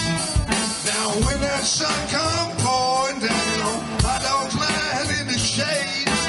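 Electric blues band playing live: electric guitar and drum kit, with a voice singing over them.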